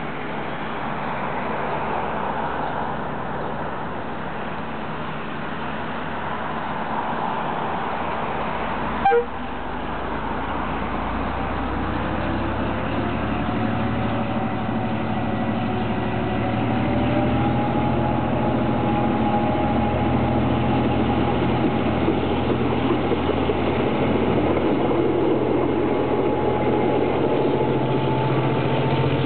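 Non-turbo EMD 12-645C diesel engine of a G22AR locomotive powering up to push a passenger train away from a standstill: its note climbs in pitch and grows louder, then holds steady as the locomotive draws near. A single short, sharp, loud sound about nine seconds in.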